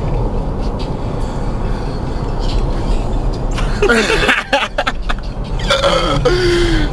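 Steady low rumble of a moving car heard from inside the cabin. In the second half a person's voice is heard briefly, twice.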